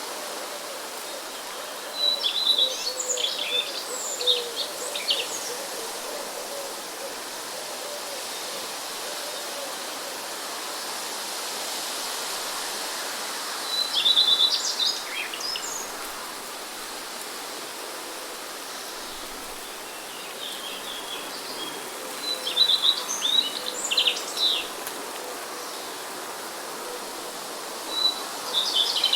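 Steady hiss of wind and rain, with a songbird singing short chirping phrases about four times over it.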